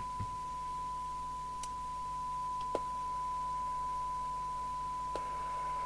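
Steady 1 kHz test tone from the receiver audio of a York JCB863 FM CB radio, demodulated from the signal generator's modulated carrier during a SINAD sensitivity test, over a faint mains hum. A few small clicks, and about five seconds in the receiver hiss comes up under the tone.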